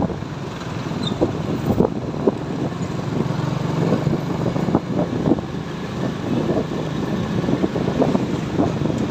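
Motorcycle engine running steadily at road speed, heard from the rider's own bike, with irregular gusty buffeting on the microphone.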